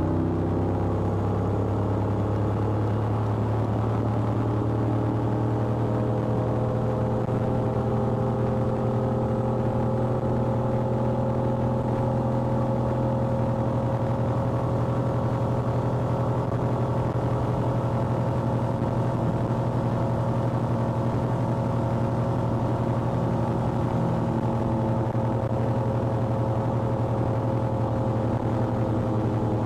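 Sea Ray 240 Sundeck's MerCruiser 350 MAG MPI V8 running hard through open Captain's Call exhaust. The engine note climbs over the first few seconds as the boat speeds up, then holds steady near top speed.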